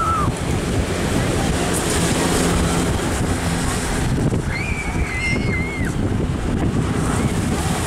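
Avro Lancaster's four Rolls-Royce Merlin engines droning steadily as the bomber flies low overhead, with wind buffeting the microphone.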